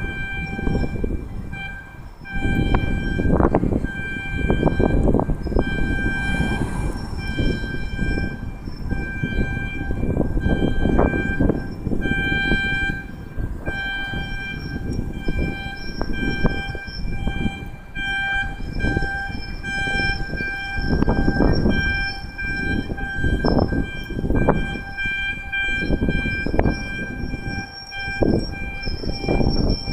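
A blasting warning siren holding one steady, unbroken tone, while gusty wind buffets the microphone.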